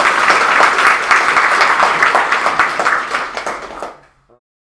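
Audience applauding, many hands clapping at once. It dies down about four seconds in and cuts off abruptly into silence.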